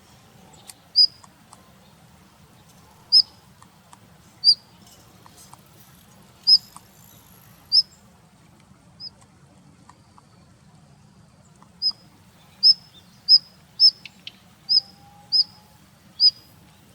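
Daurian redstart giving short, high single call notes. They come a second or more apart at first, pause for a few seconds past the middle, then come faster, about two a second, near the end.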